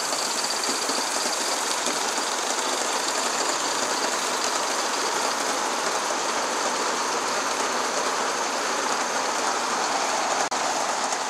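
G scale live steam locomotive running along the track with its train of cars, making a steady rushing noise. The noise drops out for a moment near the end.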